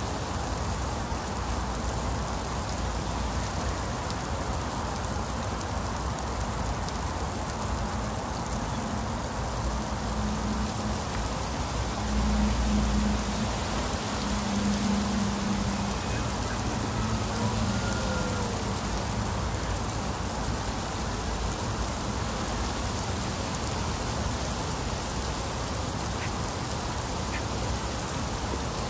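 Heavy rain falling steadily on a wet concrete lane and foliage, with a low hum swelling for a few seconds midway and a few faint duck quacks.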